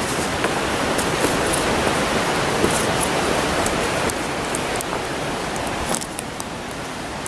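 Steady rush of flowing water, with faint light ticks of footsteps on dry ground scattered through it.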